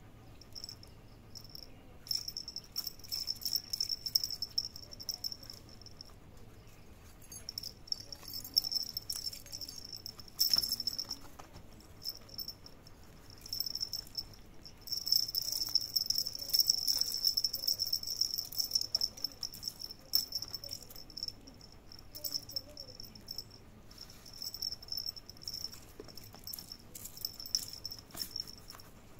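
Insects trilling in long, high-pitched, pulsing stretches of several seconds each, with short pauses between them.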